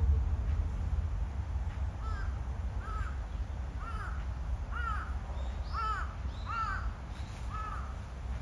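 A crow cawing a run of about eight short calls, starting about two seconds in, over a steady low rumble.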